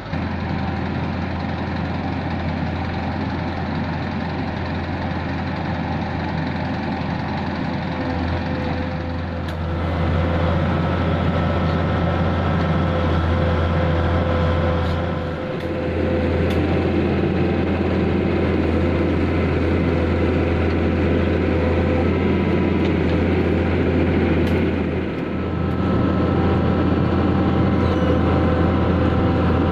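Heavy diesel engine of road-paving machinery running steadily with a deep hum, getting a little louder about ten seconds in and dipping briefly twice, about 15 and 25 seconds in.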